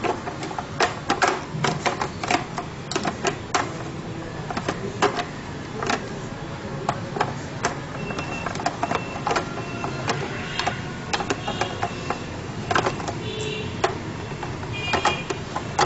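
Plastic jar of an electric spice grinder being handled and twisted onto its base: a string of irregular plastic clicks and knocks.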